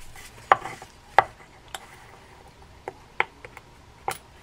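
A small metal tool clicking and scraping against a Daiwa spinning-reel spool while picking off a leftover scrap of monofilament line: about six sharp, irregular clicks.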